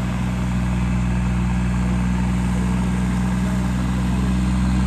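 Diesel tractor engine running steadily at an even, unchanging pitch.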